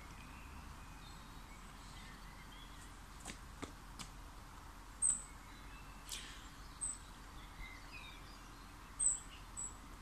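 Birds chirping: a few short, high chirps from about halfway through, loudest about five and nine seconds in, with a quick falling call in between, over faint steady outdoor background noise and a few faint ticks.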